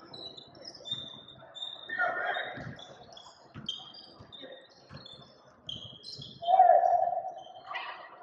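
Indoor basketball game: sneakers squeaking on the court floor, the ball bouncing several times, and players' voices calling out. One loud shout comes about six and a half seconds in.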